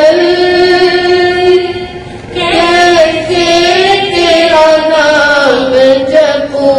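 A Jain sadhvi singing a devotional bhajan into a microphone. Her voice holds long drawn-out notes that slide from pitch to pitch, with a brief dip about two seconds in.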